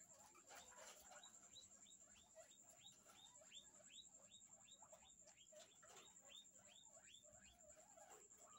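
Guinea pigs squeaking: a faint, rapid series of short rising squeaks, about four a second. A faint steady high whine runs underneath.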